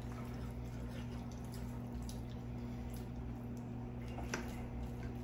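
Quiet eating sounds: wet chewing and a few light clicks of a fork against a metal sheet pan, the sharpest about four seconds in, over a steady low hum.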